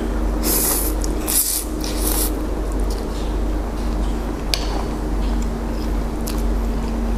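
A person slurping noodles from broth, three quick airy slurps close together, then a few light clicks of chopsticks against the bowl, over a steady room hum.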